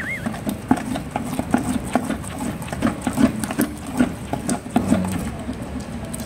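A stick stirring carbopol powder into silicone oil in a plastic bucket: irregular scraping and small taps against the bucket's side and bottom.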